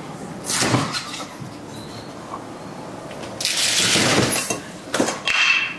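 Double-door refrigerator doors being pulled open by hand: a short whoosh as the freezer door's seal lets go, a longer, louder whoosh as the lower door is pulled open, then two sharp clicks near the end.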